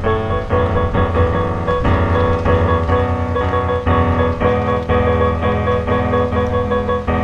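Background piano music: chords changing about twice a second.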